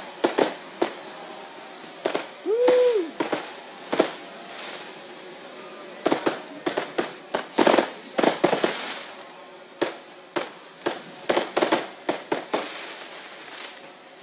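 Fireworks bursting overhead in an irregular series of sharp bangs, coming thickest from about six to nine seconds in and again from about eleven to twelve seconds in. A short rising-then-falling whistle sounds near three seconds in.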